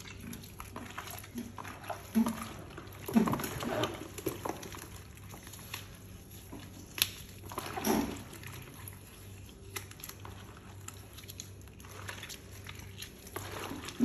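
Wet squelching and squishing of bare hands squeezing and crushing chopped fruit (apples, grapes, oranges) in a bowl, in irregular squeezes with a few louder juicy squelches. The fruit is being mashed into a pulp to ferment for distilling.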